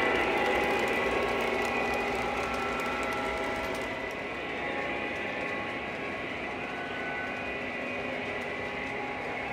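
Lionel model trains running on the layout: a steady mechanical clatter and whir of wheels and motors on the track, getting quieter over the first few seconds.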